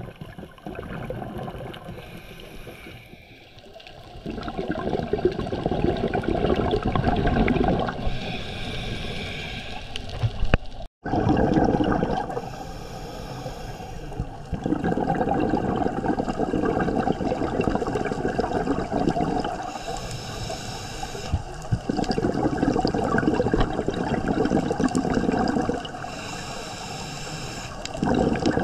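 Scuba diver breathing through a regulator underwater: a short hiss of air on each inhale, then a long gurgling rush of exhaled bubbles, three slow breaths in all.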